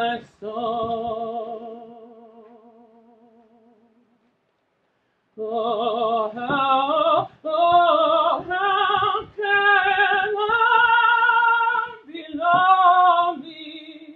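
Solo contralto voice singing unaccompanied with a wide vibrato. A long held note fades away, and after about a second of silence she sings a phrase of several notes, ending on another held note that fades out.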